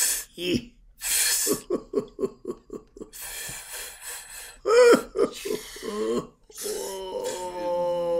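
Improvised wordless vocal sounds from men's voices: breathy hisses and gasps, then a quick run of short grunt-like pulses, some sliding whoops, and from about seven seconds in one long, held sung tone.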